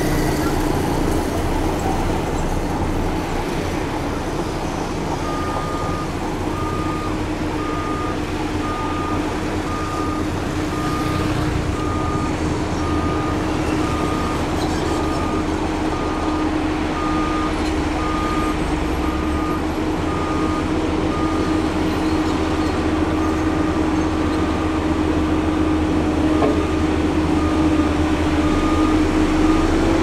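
Heavy diesel construction machine running steadily, with its reversing alarm beeping at an even pace, a little more than once a second, from about five seconds in.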